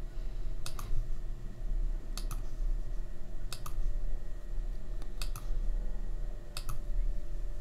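Computer clicks: five sharp double clicks, about one every second and a half, over a low steady hum.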